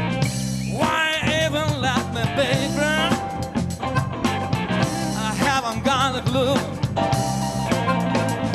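Live blues band playing: electric guitar, Fender bass guitar, drum kit, keyboard and harmonica. High wavering, bending notes come in over the band about a second in and again around the middle.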